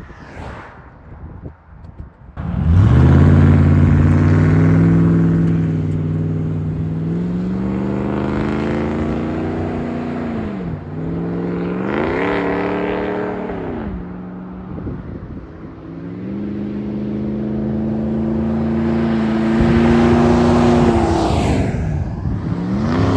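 2010 Ram 1500's Hemi V8 launching hard from a standstill about two and a half seconds in. Its revs climb, drop at the shifts and climb again as it pulls away and fades. Later it builds again as the truck comes back, with a falling pitch near the end as it passes close.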